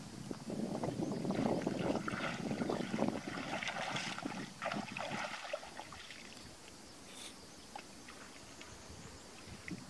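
Shallow muddy water splashing and sloshing as a person wades through it and works her hands through it, busy and irregular at first, then dying down to faint occasional splashes about halfway through.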